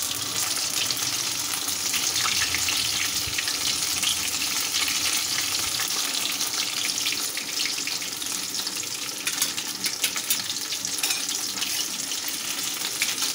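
Marinated chicken leg pieces shallow-frying in a little hot oil in a kadai: a steady sizzle with fine crackling.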